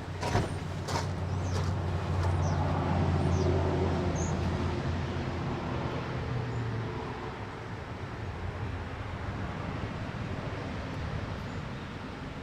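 A motor vehicle's engine running with a low, steady hum that swells a couple of seconds in and then fades away, with a few light clicks at the start.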